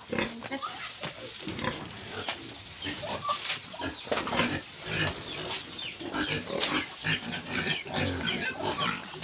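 A sow grunting in short, irregular calls, excited at being fed napier grass.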